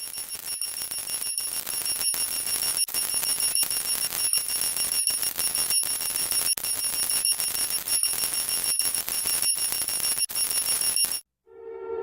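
A high-pitched electronic alarm tone over a hiss, broken by short gaps about every three-quarters of a second. It cuts off near the end, and a lower steady siren-like tone starts just before the end.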